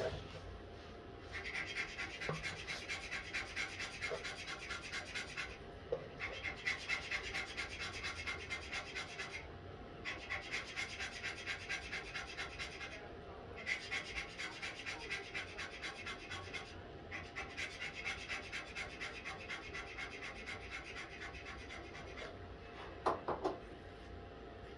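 Hand filing or sanding on wood: quick back-and-forth rasping strokes, several a second, in runs of three to four seconds with short pauses between. Two short knocks come near the end.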